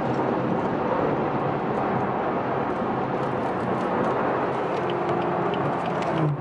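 Inside the cabin of a BMW 340i, the turbocharged inline-six runs at highway cruise with steady road and wind noise. The engine note rises slightly near the end.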